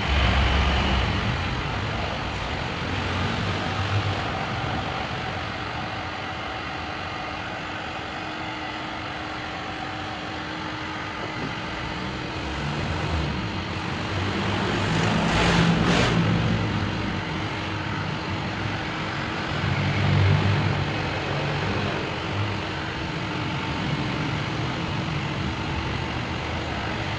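Electric heat gun blowing steadily, with a faint hum under the rush of air. It is heating a dented bumper to soften it so the dent can be pushed back into shape. The rush swells louder about fifteen seconds in and again about twenty seconds in.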